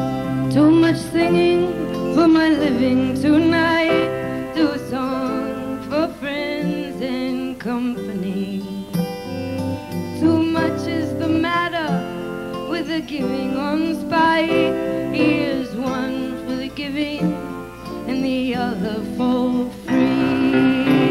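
A woman singing a song live to her own acoustic guitar, the voice gliding and sustaining notes over strummed chords.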